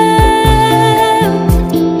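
Vietnamese pop song: a long held sung note over bass and a steady kick-drum beat. The held note ends about a second and a quarter in.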